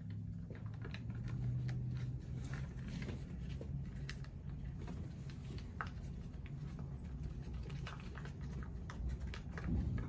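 A sheet of plain uncoated paper being folded and creased by hand into a paper cup: scattered crisp crackles and soft rustles over a low steady hum.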